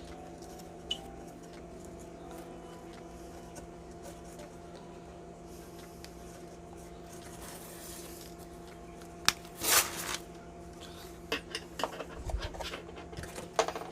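A steady low hum, then about nine seconds in a sharp snip and a short loud rustle, followed by scattered small clicks and taps: a zip tie on the shipping package being cut and the packaging handled.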